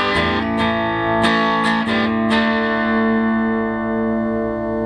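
Guitar music: a short run of picked notes, then a chord left ringing with a steady pulsing, about three throbs a second.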